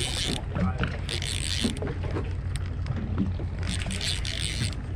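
Small fishing boat on the water: a steady low rumble under repeated bursts of water washing against the hull every second or two.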